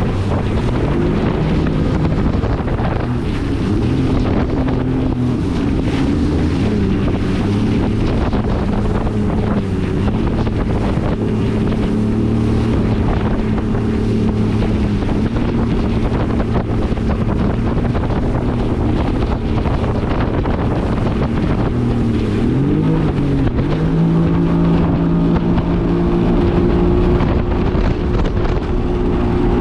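2022 Yamaha EX Sport WaveRunner's 1049 cc three-cylinder four-stroke TR-1 engine running under way, with wind buffeting the microphone and water rushing past the hull. The engine note is steady, dips briefly about three-quarters of the way through as the throttle eases, then climbs and holds at a higher pitch.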